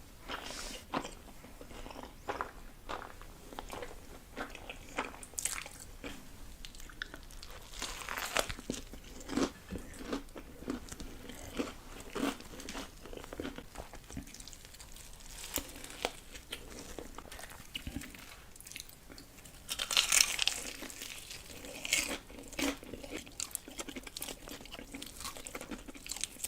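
Close-miked eating of black bean noodles (jjajangmyeon): chewing and biting with many short, wet mouth smacks and clicks. There is a louder, longer noisy burst about twenty seconds in.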